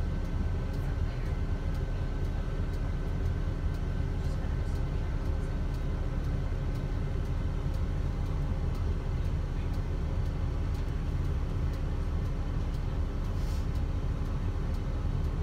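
Steady rumble of a coach bus driving, heard from inside the cabin: engine and road noise with a faint steady whine over it.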